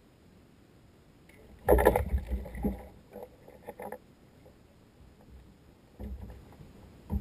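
Knocks, bumps and rustling of gear being handled on a plastic kayak: a loud cluster of knocks about two seconds in that dies away over the next two seconds, then two more thumps near the end.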